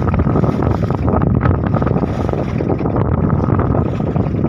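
Wind buffeting the microphone on a small fishing boat in rough sea, over a steady loud rumble of the boat and water.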